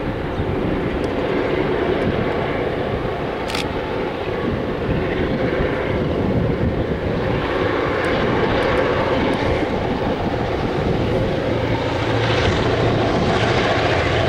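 Diesel locomotives of an approaching freight train heard from a distance: a low, steady drone that grows louder near the end. Wind buffets the microphone throughout.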